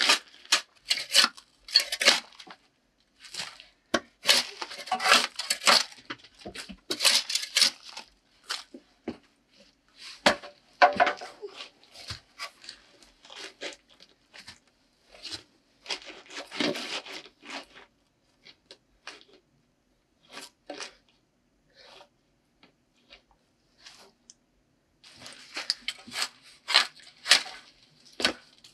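Irregular rustling, scraping and knocking of hand work as wooden boards are set along the base of a log wall. It is busy at first and thins out past the middle. Near the end come denser bursts of scraping as a long-handled tool is dragged over the sawdust-covered dirt floor.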